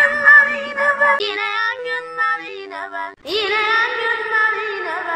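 A high sung voice, altered by effects, holding long notes. A stretch of flat, synthetic-sounding tones comes about a second in, then after a short break another long note with a wavering pitch.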